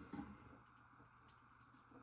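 Near silence with faint room tone, broken right at the start by one soft knock as a torpedo level is shifted on a brass pipe elbow.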